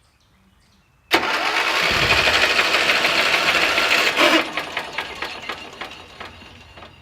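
Electric starter cranking a lawn tractor's 12 HP Briggs & Stratton I/C engine for about three seconds, spinning fast and even without catching, then winding down with fading ticks. The engine has lost all compression, which the owner thinks is from a snapped crankshaft.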